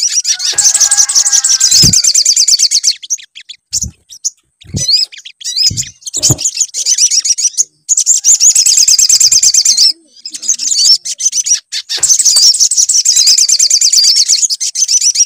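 Sunbird (sogon) song: rapid, high-pitched trilling in three long bursts, with short calls and a few low knocks in the gaps between them. A lure recording played to coax caged birds into singing.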